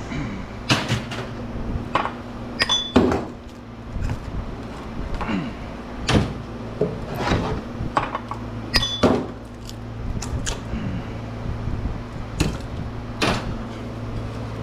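Irregular metal clanks and knocks, about a dozen, a couple ringing briefly, as small transformers are broken apart for their copper windings. Under them runs a steady electric hum that grows louder from about ten seconds in.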